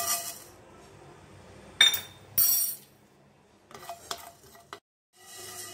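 Fenugreek seeds poured into a hot, dry frying pan for dry-roasting with a brief rattle, then a sharp metallic clink about two seconds in, followed by a louder scrape. Near the end, a few small scrapes and clicks as the seeds are stirred across the pan.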